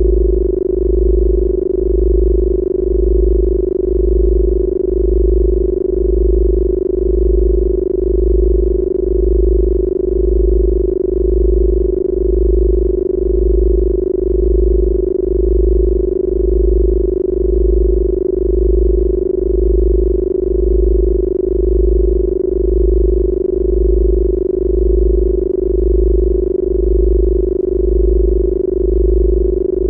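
Electronically generated Rife healing-frequency tones: a steady mid-pitched tone with a deep low tone pulsing on and off about once a second.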